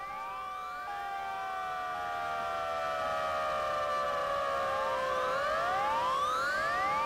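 Electronic soundtrack intro: many overlapping synthesized tones gliding up and down at once, swelling slowly in loudness.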